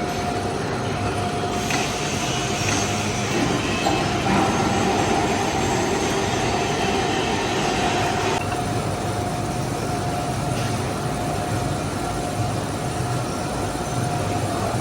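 Metal lathe running while turning a bronze bush: steady machine noise with a held whine through it; the high hiss eases a little about eight seconds in.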